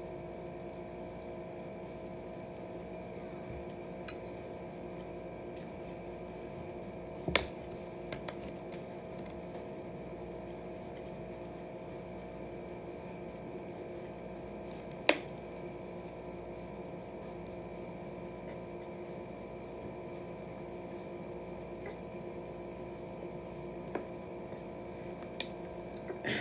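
A steady background hum. Over it, a few sharp isolated clicks, about three, spread several seconds apart, are the small sounds of a person eating at a plate with a plastic fork.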